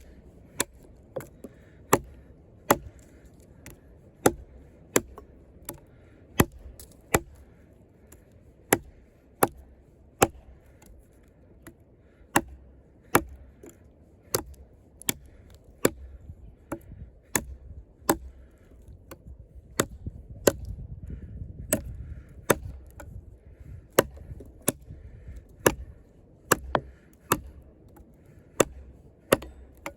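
A large fixed-blade combat knife with a 6 mm thick Sleipner steel blade is chopping into a hard log. Sharp chops come steadily and without a break, about one every three-quarters of a second.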